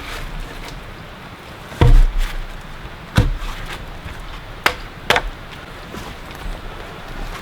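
Wood being struck: four heavy knocks spaced about a second apart, the first the loudest and deepest with a short rebound after it.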